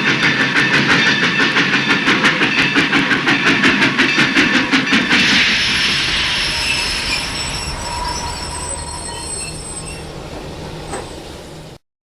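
Train passing at speed, its wheels clattering over rail joints about seven times a second. About five seconds in the clatter stops, leaving a hiss and thin high squealing tones that slowly fade. The sound then cuts off abruptly near the end.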